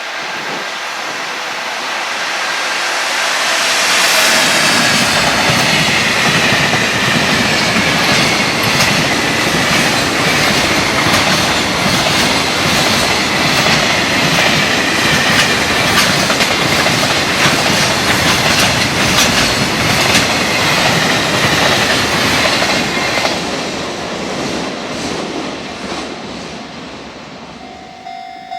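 Freight train passing at speed over a rail joint: a continuous clickety-clack of wagon wheels striking the joint, building up over the first few seconds, holding for about twenty seconds as the wagons go by, then fading away near the end.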